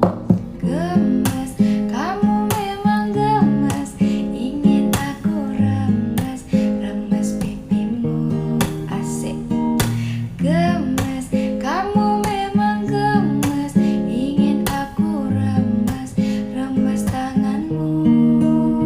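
Music: strummed acoustic guitar with a melody line that glides up and down in pitch.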